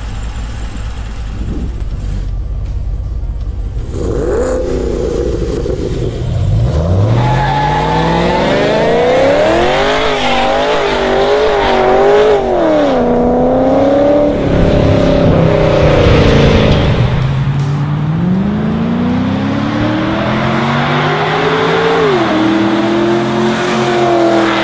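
2014 Chevy SS's 6.2-litre LS3 V8 through Kooks headers. It idles with a low rumble and blips a couple of times, then revs up and down hard through a burnout with tyre squeal. Near the end it accelerates with a long rising note, and a gear change drops the pitch before it climbs again.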